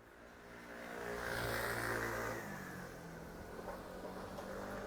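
A motor vehicle's engine running in a street, fading in and growing louder over the first second and a half, then dropping slightly and changing pitch about two and a half seconds in.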